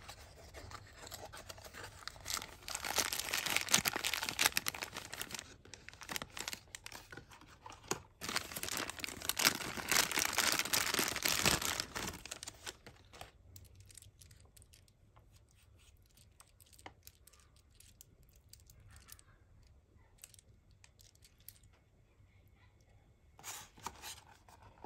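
Thin clear plastic wrapping bag crinkling and crackling as it is handled and pulled off a toy. It comes in two loud stretches of a few seconds each in the first half, then dies down to scattered light rustles and ticks.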